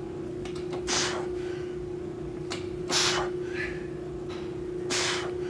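A man's forceful exhalations while doing close-grip incline push-ups against a bench back: a sharp breath out about every two seconds, one with each rep. A steady hum runs underneath.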